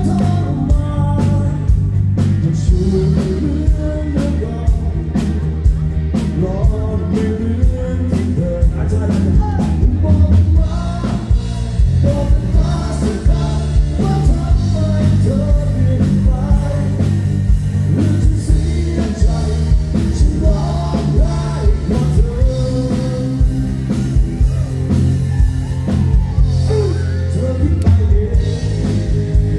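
Live rock music played loud through a stage PA, a male vocalist singing over keyboard and a heavy bass line.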